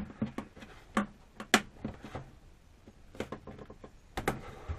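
A handful of short, sharp clicks and taps, irregularly spaced, from hands working with tape and the canopy of an RC model plane.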